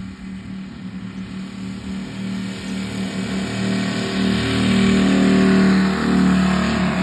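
Twin UMS 150cc radial engines of a giant radio-controlled DHC-4 Caribou model running at high power on its ground roll. The sound grows steadily louder as the plane closes on the microphone, peaking about five to six seconds in.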